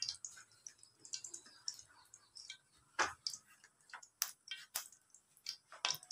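Cooking oil heating in a non-stick pan, crackling with irregular sharp pops, several a second, the loudest about three seconds in.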